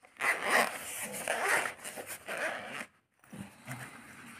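Zipper on a hard-shell carrying case for a wireless microphone kit being unzipped in about three pulls, followed by softer rustling as the case is opened.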